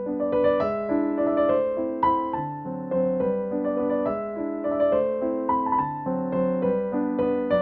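Background piano music: a gentle melody of struck notes over sustained lower chords.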